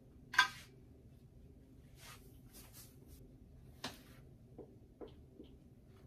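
A whiteboard being wiped with an eraser: a short sharp swish about half a second in, a run of quick swishing strokes around two to four seconds in, then a few faint taps as a dry-erase marker starts writing on the board.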